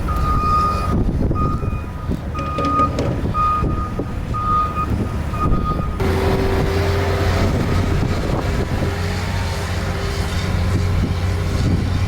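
Snow plow truck's reversing alarm beeping repeatedly, about once a second, over its engine running. About halfway through the beeping cuts off suddenly and a heavy truck engine drone with a steady hum carries on.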